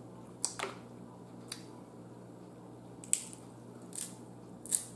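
Eating snow crab legs by hand: a few short, sharp cracks and wet clicks as the thin shells are snapped and picked apart and the meat is eaten.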